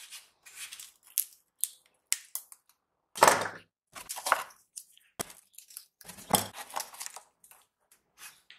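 Rusty metal scooter parts, the body cover and fuel tank, handled and set down on a wooden workbench. Irregular knocks, scrapes and clinks, with two louder clunks about three seconds and six and a half seconds in.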